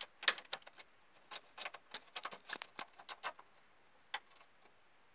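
Irregular small clicks and scrapes of a VGA cable's plastic-and-metal connector being seated in a computer's port and its thumbscrews turned by hand, with a last single click about four seconds in.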